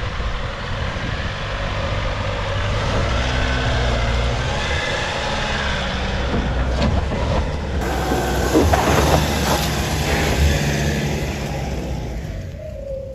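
4WD ute engine working under load as the vehicle crawls up a steep, undercut dirt bank, its revs rising and falling. About two-thirds of the way through there is crackling from the tyres on loose dirt.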